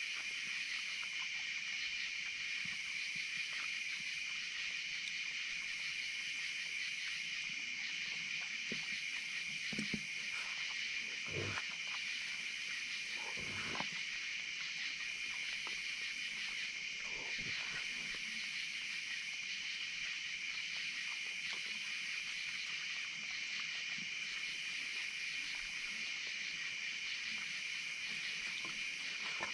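Raccoons eating at a feeding table against a steady high-pitched chorus of night insects. Several short animal noises come through in the middle, the loudest two close together.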